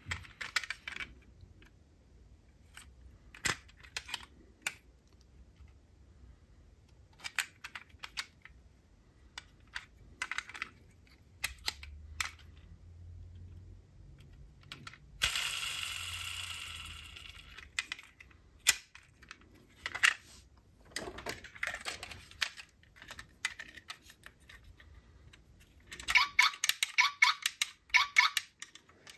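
Die-cast toy cars being handled, with scattered small clicks and clinks of metal and plastic. About halfway through there is a brief rushing noise that fades, and near the end a quick run of ringing clinks.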